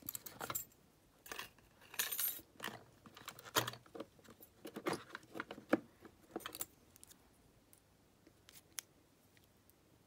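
Sharp metal clicks and clinks of a padlock being taken apart, as the key and shim are worked in an Abus 72/40 padlock to free its cylinder core. The clicks come in a quick irregular run for about seven seconds, then only a couple of faint ticks.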